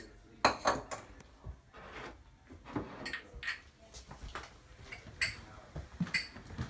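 Drinking glasses knocked and set down on a kitchen counter, with the loudest knock about half a second in, followed by scattered clinks and footsteps as the glasses are carried off.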